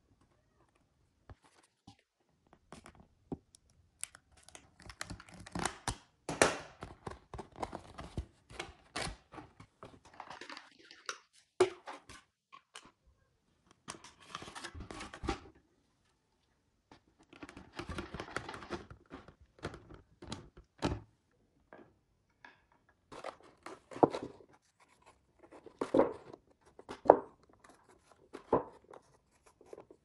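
Hand-work noises: irregular bursts of tearing and rustling with sharp knocks, in a small room.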